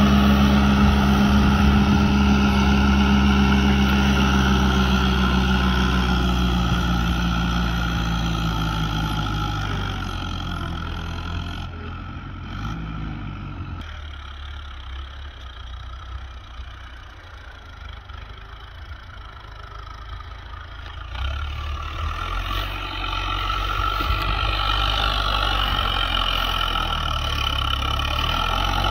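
Fiat 640 DT tractor's diesel engine working under load while pulling a reversible plough. It is loud at first, fades as the tractor moves away and turns at the far end of the field, then grows louder again as it comes back.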